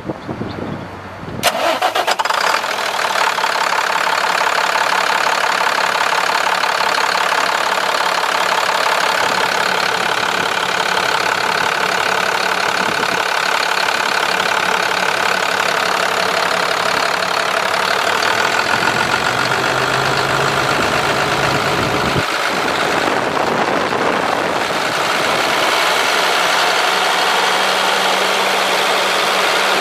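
International MaxxForce DT466 inline-six diesel engine starting about a second and a half in, then settling into a steady idle.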